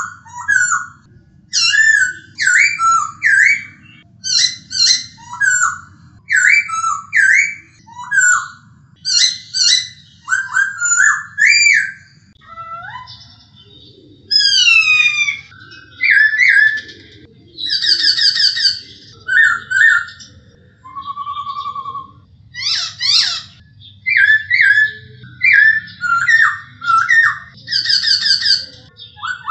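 Black-throated laughingthrush (poksay Hongkong) singing: clear whistled phrases with rising and falling glides, repeated in quick bursts with short pauses, and a few fast trilled series midway. A faint low hum runs underneath.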